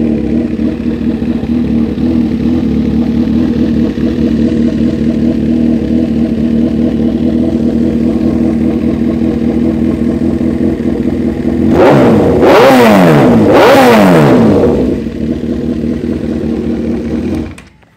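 Honda CB1000R's inline-four engine idling steadily through an aftermarket carbon slip-on exhaust, then blipped twice in quick succession near the end, the pitch rising and falling each time, before settling back to idle and cutting off.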